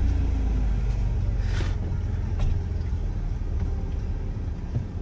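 Minivan driving slowly over a rough dirt forest road, heard from inside the cabin: steady low engine and road rumble with a few short knocks and rattles from the bumpy track.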